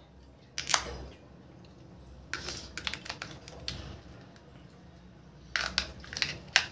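Batteries clicking and scraping into the plastic battery compartment of a toy bubble gun as they are pushed in one by one. There is a sharp click about half a second in, then clusters of small clicks around two to four seconds and again near the end.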